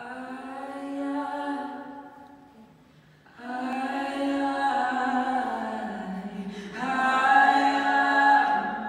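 Women's a cappella group singing held chords in harmony. The first chord fades almost to nothing about three seconds in, then a new chord comes in, and a louder one swells near the end.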